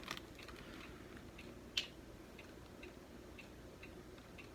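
Faint scattered clicks and ticks of fingernails picking at the plastic packaging on a liquid lipstick, with one sharper click about two seconds in.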